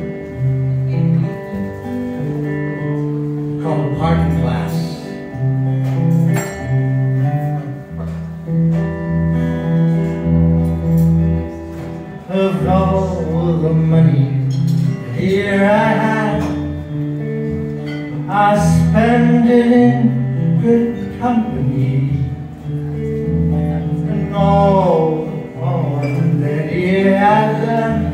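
Acoustic guitar played in slow chords, with a man singing a slow folk ballad over it in separate phrases.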